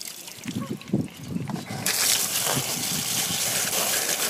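Water from a garden hose splashing over a wet spaniel's coat and onto cobblestones: uneven splashing at first, then a steady, louder rush of water from about two seconds in.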